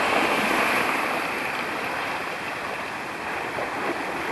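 A group of wild boars splashing through shallow river water along the bank: a steady rushing splash that slowly fades.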